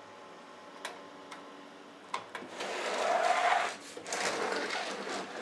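A desktop computer tower being handled on a wooden desk: two light clicks, then the metal case scraping across the desktop in two stretches as it is turned round, over the faint hum of the running PC.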